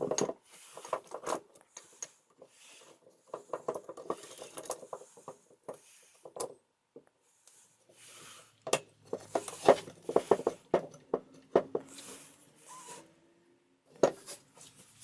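Irregular clicks, knocks and short scraping strokes of hand work on a workbench, with a cluster of louder knocks about two thirds of the way through.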